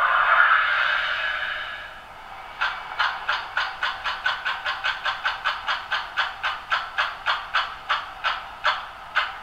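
Sound decoder of a Piko BR 216 H0 model diesel locomotive playing its engine sound through a small onboard speaker, thin with no bass. A steady drone fades away over the first two seconds, then a regular pulsing of about three beats a second follows and slows a little near the end.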